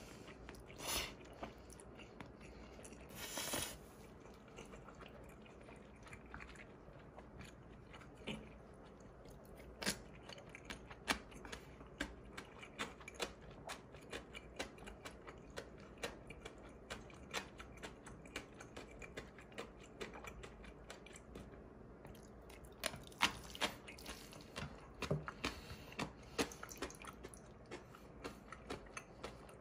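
Someone chewing and biting into black-bean instant noodles and crunchy yellow pickled radish, heard as a run of short crisp mouth clicks, about one or two a second.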